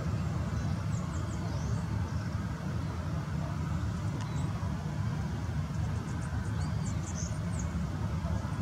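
Boeing 737-800's CFM56-7B jet engines running at taxi power, a steady low rumble. A few brief high chirps sound over it.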